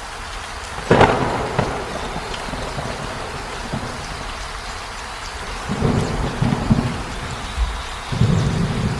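Steady rain with thunder: a sharp crack about a second in that fades away, then low rolling rumbles from about six seconds in and again near the end.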